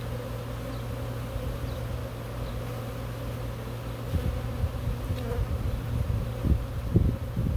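A mass of honeybees buzzing steadily around an opened hive. In the second half, irregular low rumbles and bumps join the hum.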